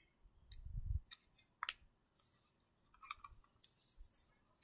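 Faint clicks and taps of hands handling a handheld media player and its earbud cable on a carpet, with a soft low thump in the first second.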